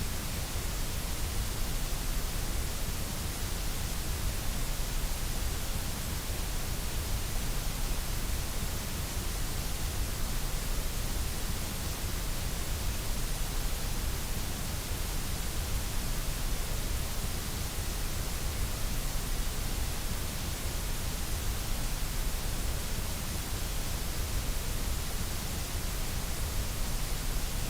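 Steady electronically generated white noise: a constant, unchanging hiss spread across all pitches, with a low rumble underneath.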